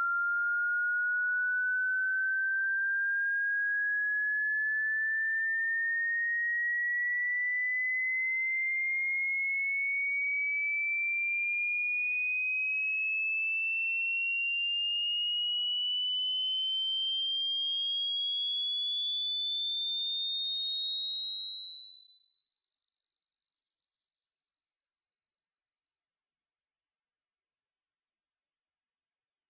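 A single pure electronic sine tone gliding slowly and evenly upward in pitch at a steady volume: a frequency sweep used as a hearing test.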